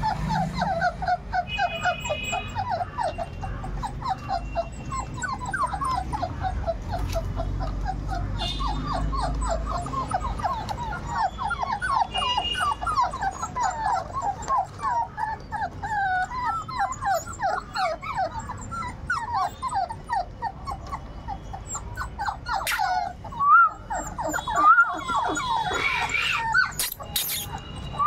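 A litter of 38-day-old Labrador puppies whimpering and squealing together in a constant chorus of short, high cries, with a few louder yelps near the end.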